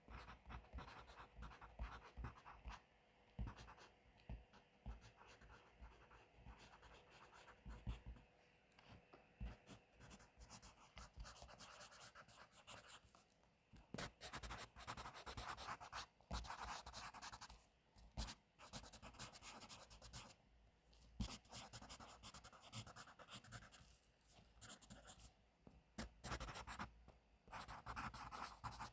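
Pencil writing on paper: a steady run of quick, scratchy strokes, broken now and then by short pauses.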